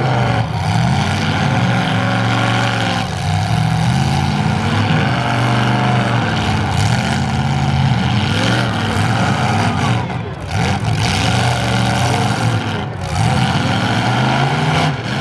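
Engines of two modified full-size demolition derby cars revving repeatedly, rising and falling in pitch every two to three seconds, as the cars push against each other locked bumper to bumper.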